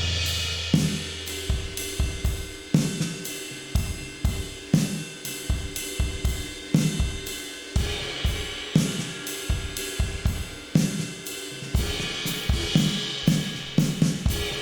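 Drum kit played as a steady groove, recorded with room mics so it sounds ambient and roomy: kick and snare hits on a regular beat, about two a second, under a continuous wash of cymbals, with a few brighter cymbal swells.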